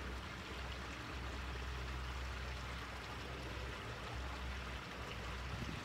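Steady rushing background noise with a low rumble underneath.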